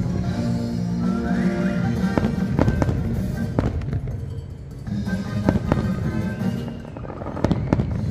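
Fireworks shells bursting with sharp bangs, several coming in quick pairs a couple of seconds apart, over the fireworks show's soundtrack music.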